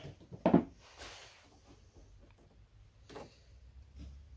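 Handling noise from fitting a fuel hose onto a lawnmower carburetor and taking up pliers for its clip: two short knocks, about half a second in and about three seconds in, with faint small clicks between.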